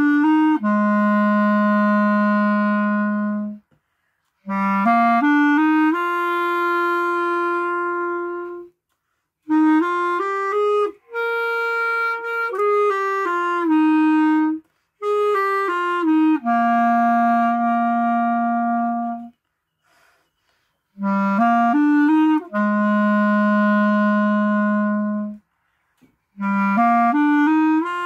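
Solo clarinet playing a slow melody in phrases of a few seconds. Most phrases open with a quick rising run of notes and end on a long held low note, with short breaks for breath between them.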